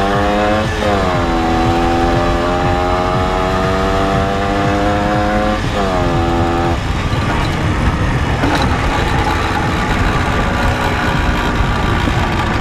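Two-stroke engine of a home-built Minsk motorcycle under way. Its pitch climbs slowly and drops sharply twice, about a second in and near six seconds, as it shifts up. From about seven seconds its steady note gives way to a rougher, noisier sound. The engine is weak at low revs, which the owner puts down to a worn piston and rings.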